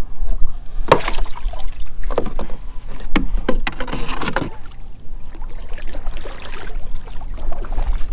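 Knocks and rattles of gear being handled on a plastic sit-on-top fishing kayak, several sharp knocks in the first half, over a steady low rumble of wind on the microphone.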